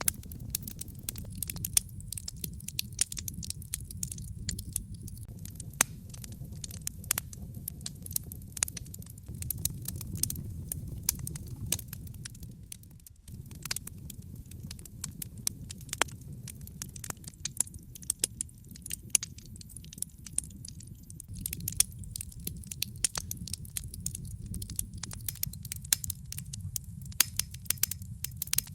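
Wood fire in a fireplace crackling, with many sharp irregular snaps and pops over a low, steady rush of burning. The low sound fades briefly about halfway through.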